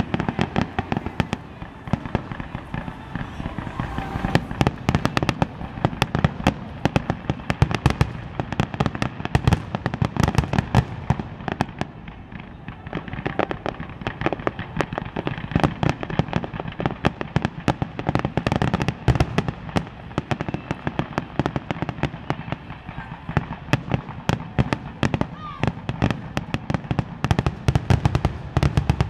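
Aerial fireworks display: a rapid, continuous string of bangs and crackles from shells bursting, many per second, easing off briefly a couple of times before building again.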